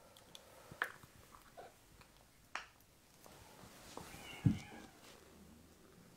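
A cat meows once, briefly, about four seconds in, with a dull thump at the same moment; a few sharp clicks from handling come before it.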